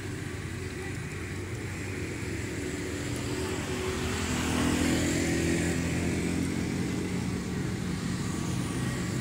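A motor vehicle's engine hum, growing louder about halfway through.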